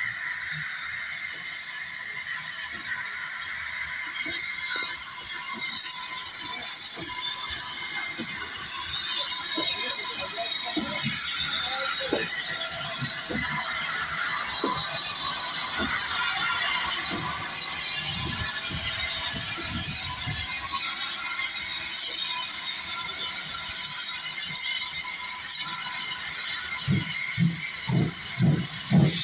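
Polish steam locomotive running slowly past at close range: a steady hiss of steam that builds, with scattered clanks and squeals from the wheels and motion. Near the end the exhaust starts to beat, about one and a half chuffs a second, as it pulls away.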